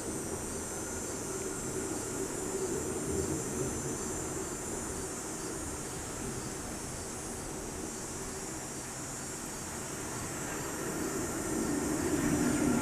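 Distant jet aircraft rumbling out of sight, a steady low roar that swells toward the end, with a steady high-pitched hiss above it.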